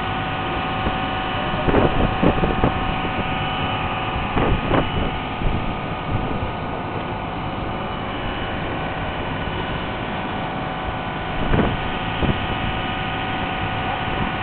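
A boat's engine running steadily under way with a steady hum, over the rush of the bow wave along the hull. A few louder splashes come as the hull meets waves, around 2, 4.5 and 11.5 seconds in.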